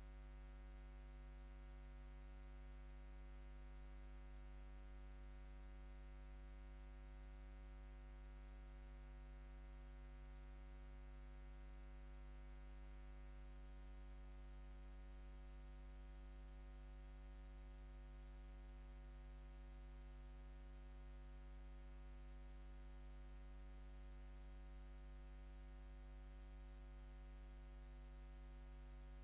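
Near silence: a faint, steady electrical hum with light hiss, unchanging throughout.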